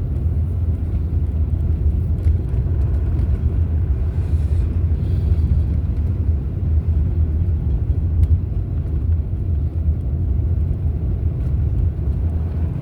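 Pickup truck driving, heard from inside the cab: a steady low rumble of engine and road.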